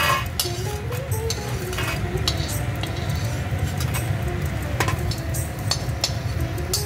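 A metal slotted spoon clinking and scraping in an iron kadhai, and puffed gum pieces being tipped onto a steel plate: a scatter of sharp clinks. Soft background music plays along.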